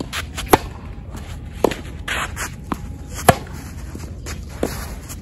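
Tennis rally: sharp racket-on-ball hits, the loudest being the near player's serve about half a second in and his return shot a little after three seconds, with fainter hits from the far end of the court between and after.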